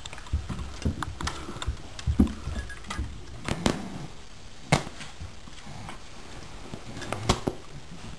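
Two dogs, a German Shepherd puppy among them, playing with a fabric toy: scattered thumps, taps and sharp clicks from paws, claws and the toy, with no barking.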